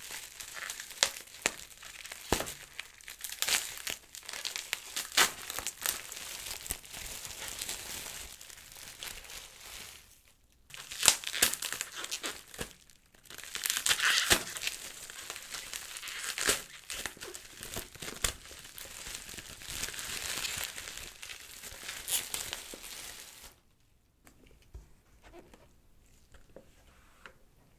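Crinkly packaging wrap being handled and pulled open: a steady run of crackling and crinkling with sharp snaps, pausing briefly twice. It stops about 23 seconds in, and only a few faint small taps follow.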